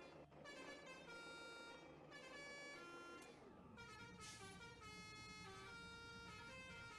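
Truck telolet horn, a set of air horns, playing a quick melody of tooted notes that change pitch every fraction of a second. A short hiss comes about halfway through.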